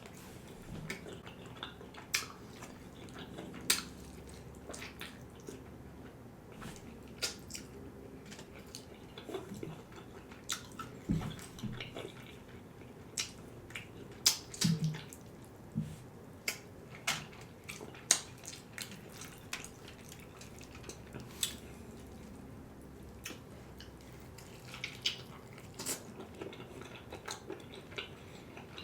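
Close-up eating of KFC fried chicken: irregular crisp crunches and wet mouth clicks while biting and chewing, with a run of louder bites around the middle.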